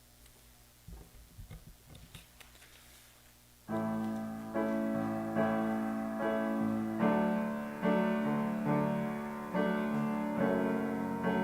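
A piano starts the introduction to a worship song about a third of the way in, playing sustained chords with a new chord struck roughly every second. Before it, a few faint soft knocks.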